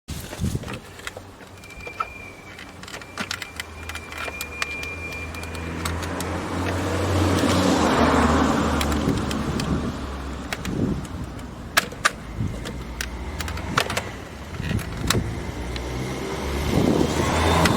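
A car passing by, its noise swelling to a peak about eight seconds in and then fading, with scattered sharp clicks and knocks throughout.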